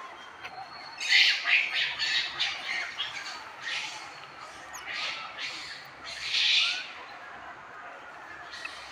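Newborn macaque crying in distress: a run of shrill, harsh cries starting about a second in and repeating for about six seconds, with one longer cry near the end.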